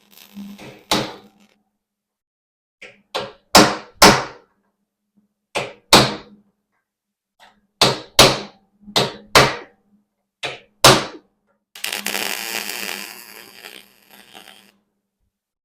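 Hammer striking the steel ATV frame and welded patch, about a dozen sharp, ringing blows, many in quick pairs, used to tap the metal into place. Near the end comes about three seconds of steady scratchy noise.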